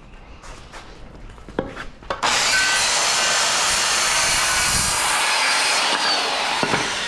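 A few light wooden knocks, then about two seconds in a circular saw starts cutting a scrap of framing lumber into a block. The loud, steady cutting noise holds for several seconds and begins to die away near the end.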